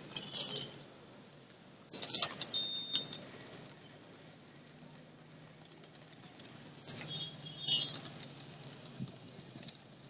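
A large flock of feral pigeons beating their wings as they take off and settle around scattered feed, with loud bursts of wing clatter about two seconds in and again around seven to eight seconds.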